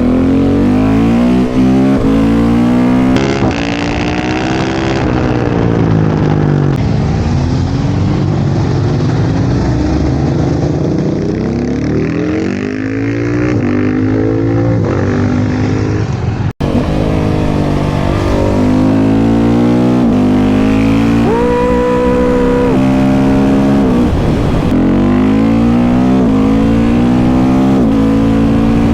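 KTM 690 SMC R's single-cylinder engine through a Leo Vince exhaust, revving up and dropping back again and again as the bike is ridden through the gears. A brief steady tone sounds about two-thirds of the way through.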